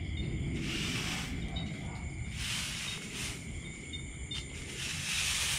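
Night insects, crickets among them, trilling steadily, the high chirring swelling and fading a few times over a low rumble of outdoor noise.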